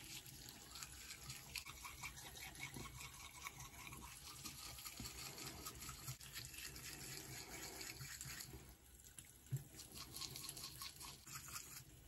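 Manual toothbrush scrubbing teeth with foamy toothpaste: a faint, fast, wet scratching of bristles. It eases off briefly about eight and a half seconds in, with a single sharp click soon after.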